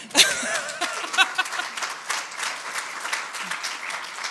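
Audience applauding: dense clapping from many hands that starts right away and slowly eases off.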